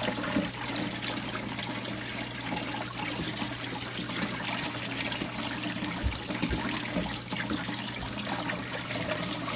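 Kitchen tap water running steadily, rinsing soaked vermicelli noodles.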